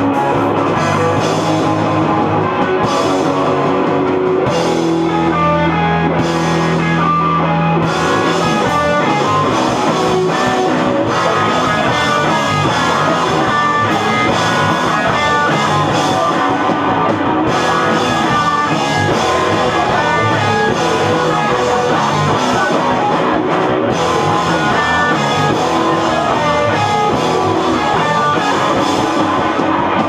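A rock band playing live on electric guitars and a drum kit, loud and dense with no break.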